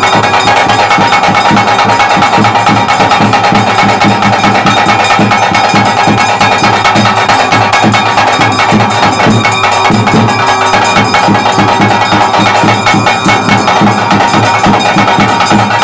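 Loud traditional ritual music for a Tulu Daiva Nema: fast, continuous drumming and percussion under a steady, held pipe tone.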